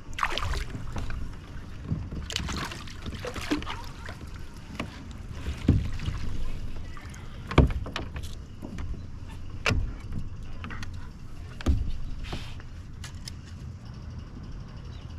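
Handling noise on a plastic pedal kayak: a few sharp knocks against the hull, roughly every two seconds through the middle, over a low, steady rumble of water and movement.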